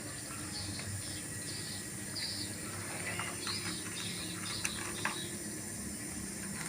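Small birds chirping: a string of short, high chirps about every half second to a second, over a steady low hum.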